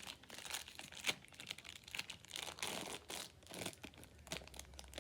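Small plastic toy packaging being crinkled and torn open by hand: a run of irregular crackles and rustles.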